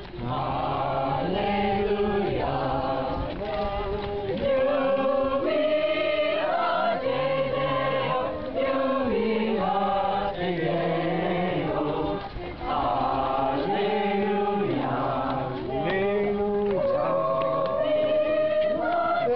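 A choir sings in several voices, holding long notes that move from one chord to the next.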